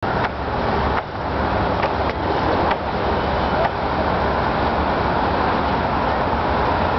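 Steady rumble of road traffic, with a few short, sharp clicks in the first four seconds.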